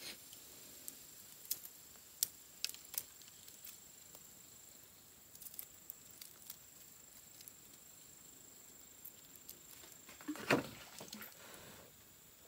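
Sparse, sharp crackles and pops from a charcoal fire with frogs grilling on bamboo skewers. About ten seconds in there is a louder rustle and knock as the skewers are handled over the fire.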